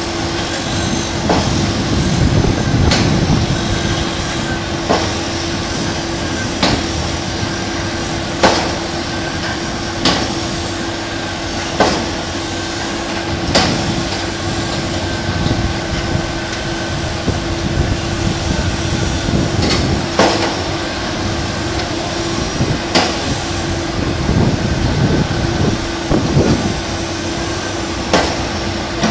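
Heavy construction machinery on a piling site: a steady diesel engine drone with one held tone, and sharp knocks that repeat roughly every two seconds.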